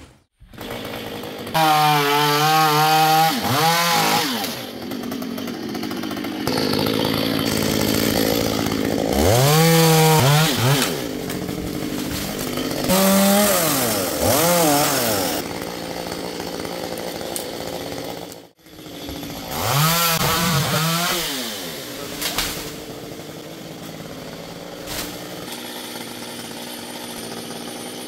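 Stihl chainsaw running, revving up and dropping back several times between stretches of steadier running.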